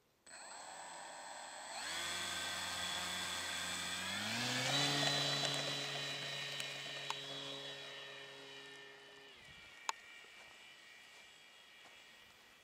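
Small brushless electric motor turning a 10x6 propeller on a radio-controlled model plane, a whine that steps up in pitch twice as the throttle is opened, holds steady, then fades away. A single sharp click about ten seconds in.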